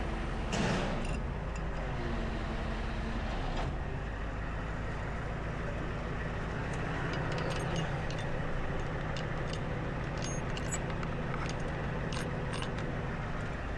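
Tow truck engine idling steadily, with scattered light metallic clinks of tie-down chains being handled, mostly in the second half.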